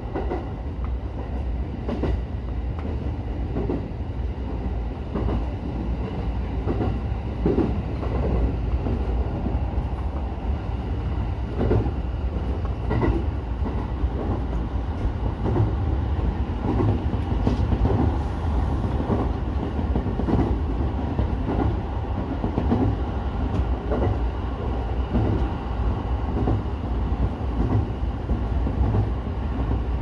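JR E231 series electric commuter train running at speed on single track, heard from inside the front car: a steady low rumble with repeated clicks of the wheels over the rail.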